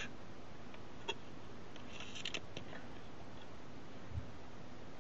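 A few faint small clicks and taps from hands handling a leaf-shutter lens on a shutter tester, over a low steady hiss.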